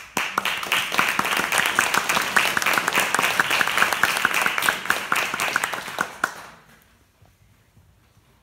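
Audience applauding, a dense patter of many hands with sharp individual claps standing out; it starts abruptly and dies away about six and a half seconds in.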